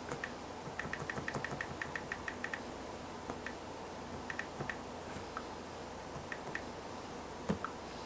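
A quick, even run of about ten light clicks, then a few scattered clicks and one louder knock near the end, over a steady room hum.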